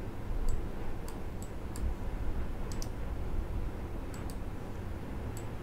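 About nine light, unevenly spaced clicks from a computer mouse and keyboard, over a steady low hum.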